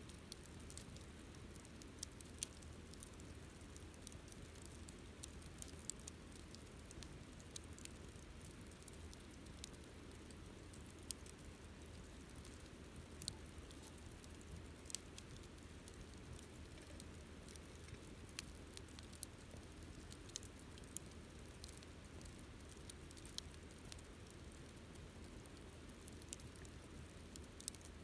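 Wood campfire crackling: faint, irregular sharp pops and snaps, roughly one or two a second, over a low steady background rumble.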